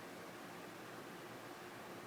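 Faint steady hiss of room tone, with no distinct event.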